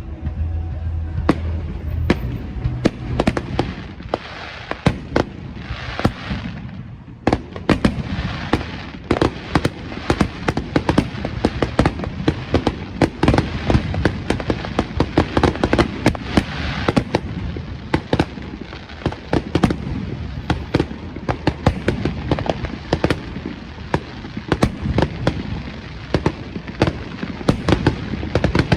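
Fireworks display: a dense, continuous barrage of sharp bangs and crackles, several reports a second, over a steady rumble. It eases briefly about seven seconds in, then picks up again.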